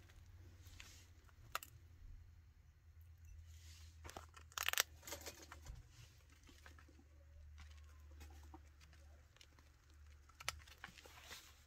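Faint crunching and crinkling of a chinchilla gnawing a seed treat stick, small scattered clicks with a louder crackly rustle about five seconds in.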